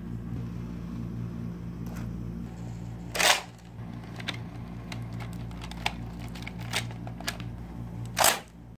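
Nerf Mega Magnus toy blaster being handled and loaded: light plastic clicks and rattles, with two louder short rushing strokes about five seconds apart, over a steady low hum.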